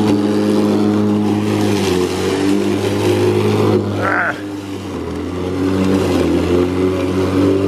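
Makita DLM382 cordless lawn mower's electric motor and blade running steadily while cutting tall, overgrown grass. About halfway through the pitch and level dip briefly, then pick back up.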